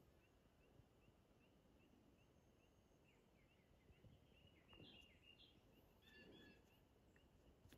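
Near silence with the faint, high chirps of a distant calling animal, repeating about three times a second, and a short cluster of higher calls about five seconds in.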